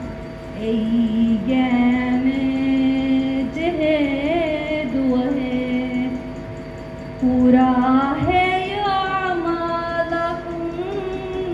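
A woman singing solo into a microphone, holding long notes that waver and slide in pitch.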